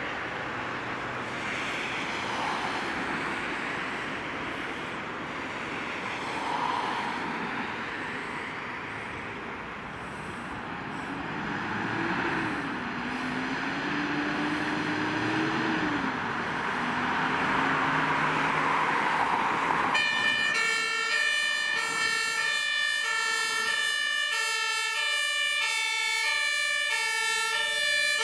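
Fire service command truck (ELW 2) driving out with steady engine and road noise. About two-thirds of the way through, its compressed-air two-tone horn starts, alternating steadily between a high and a low note.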